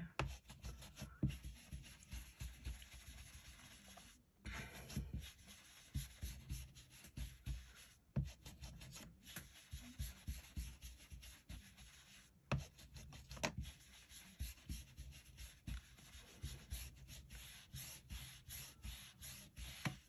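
Large makeup brush rubbing ink onto paper card in quick, irregular strokes, with a couple of brief pauses.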